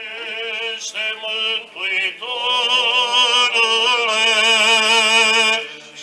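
Male chanting of a Romanian Orthodox funeral hymn for the departed: a slow, drawn-out melismatic line with vibrato, growing louder about two seconds in.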